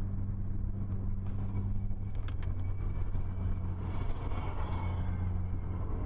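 Steady drone of a car cruising at highway speed, with a low engine hum under road and tyre noise. A few faint clicks come about two seconds in.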